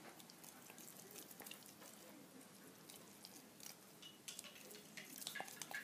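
Faint, irregular clicks and scrapes of a stick stirring sodium silicate and alcohol in a beaker as the mixture sets into a gel. The clicks come more often near the end.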